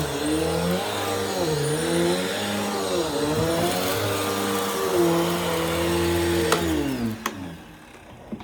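Bissell CleanView upright vacuum cleaner running in long back-and-forth passes, its motor pitch dipping and recovering with each stroke as the load on the nozzle changes. About six and a half seconds in there is a click and the motor winds down to a stop.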